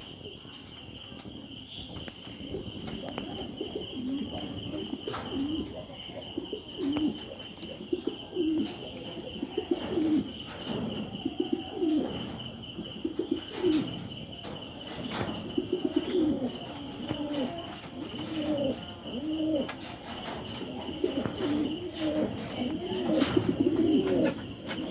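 Domestic pigeons cooing again and again, several birds overlapping in short rising-and-falling coos. Underneath runs a steady high insect chirring.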